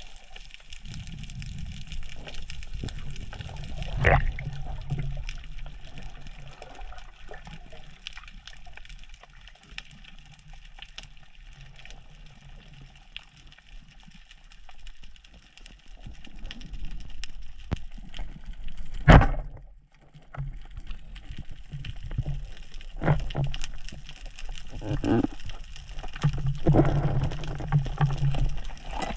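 Underwater ambience picked up by an action camera in its waterproof housing: muffled water movement with a low rumble that surges now and then. A few sharp knocks cut through it, one about four seconds in and the loudest about two-thirds of the way through.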